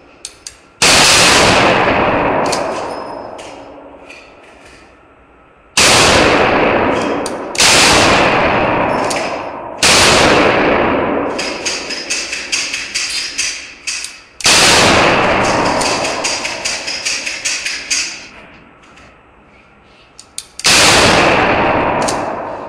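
Six loud handgun shots, a few seconds apart and unevenly spaced, each fading away slowly with a rattle of small clicks in its tail.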